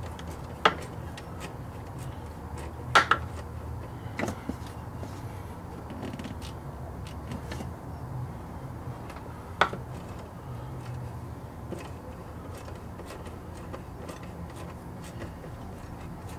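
Metal hand tools clinking and knocking while working on the engine: a few sharp clinks, the loudest about three seconds in and near ten seconds, with fainter scattered ticks over a low steady hum.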